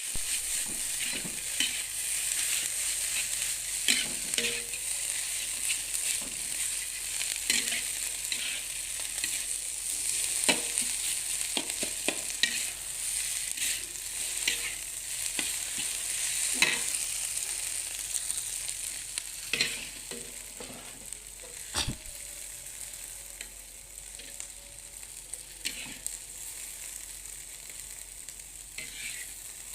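Egg and tofu stir-frying in hot oil in a pan: a steady sizzling hiss with frequent clicks and scrapes of a utensil against the pan. The sizzle gets quieter after about two-thirds of the way through.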